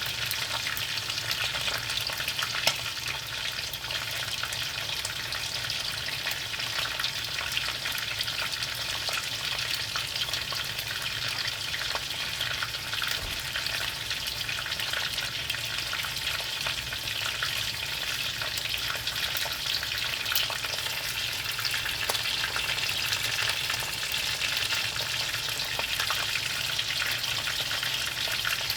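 Squid frying in hot oil: a steady sizzle thick with small crackles and spits, with one sharper pop about three seconds in.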